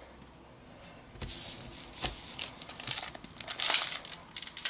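A foil booster pack of Panini Adrenalyn XL trading cards being torn open, its wrapper crinkling. The rustling starts faintly about a second in and gets louder and busier towards the end.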